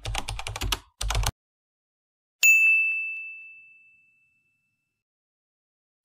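Keyboard-typing sound effect: a fast run of clicks for just over a second, with a short break partway. Then a single bright bell-like ding that rings out and fades over about a second and a half.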